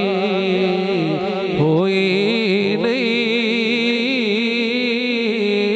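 A male naat reciter sings a Punjabi naat, drawing out long wavering, ornamented notes over a steady drone.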